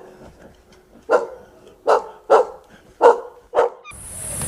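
A dog barking: five short, sharp barks at uneven intervals. Just before the end the barking cuts off abruptly and a steady high hiss takes over.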